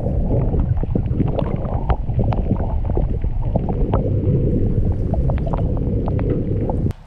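Muffled underwater sound from a submerged camera: a dense low rumble with many scattered sharp clicks and crackles.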